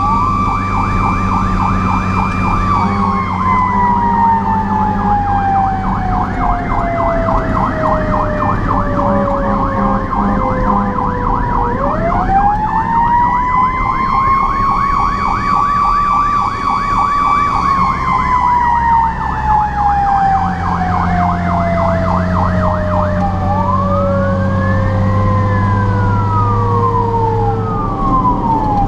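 Fire truck sirens heard from inside the cab: a siren whine rises, holds and then coasts slowly down, twice, over a second siren's fast, repeating yelp. The truck's diesel engine drones underneath.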